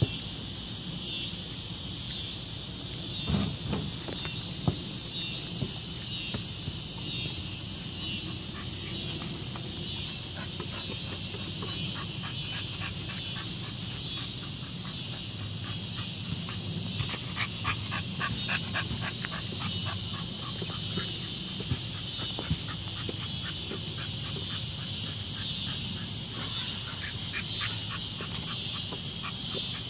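Steady high-pitched chorus of insects, with a dog's quick panting coming in short runs, and a few soft knocks in the first seconds.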